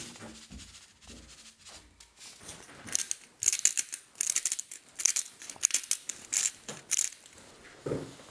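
Hand spice grinder being twisted, giving clusters of crisp, rapid grinding clicks from about three seconds in. A duller thud comes near the end.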